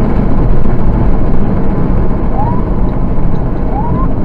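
Engine and road noise inside a car driving fast on a highway, loud and steady. Short rising siren whoops come twice, about halfway through and near the end.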